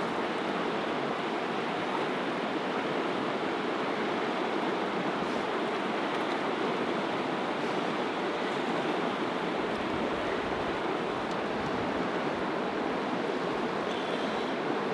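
Steady rushing of a swift river running close by, an even, unbroken wash of water noise.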